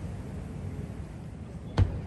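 A single firework shell bursting with one sharp boom near the end, over a steady low rumble.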